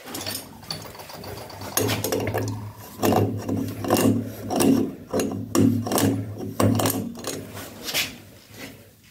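A wrench tightening the flexible supply-hose nut on a chrome angle stop valve under a washbasin: repeated rasping, scraping strokes of metal on metal, about two a second from about three seconds in.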